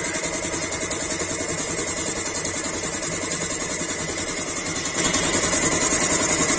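Belt-driven single-cylinder piston air compressor, run by an electric motor, running steadily and building tank pressure: a rapid even pulsing with a hiss over it, louder from about five seconds in.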